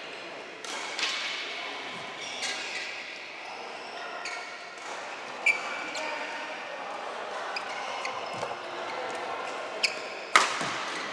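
Badminton rackets hitting a shuttlecock in a rally: sharp pops a second or more apart, echoing in a large sports hall, with the loudest hit near the end.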